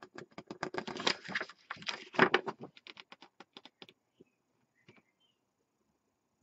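Glossy magazine pages being handled and turned: a quick run of rustling, crackling paper for about three seconds, thinning to a few light ticks.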